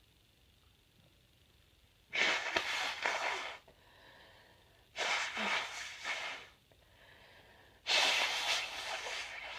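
Three forceful blasts of breath from a person's nose and mouth, about a second and a half each and about three seconds apart, with quieter breathing between them.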